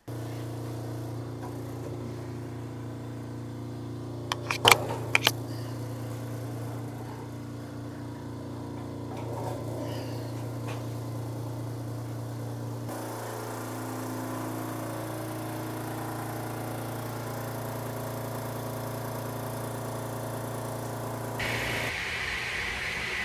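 Air Techniques AirStar 22 dental air compressor running with a steady hum, its purge-valve solenoid newly replaced. A few sharp knocks about five seconds in.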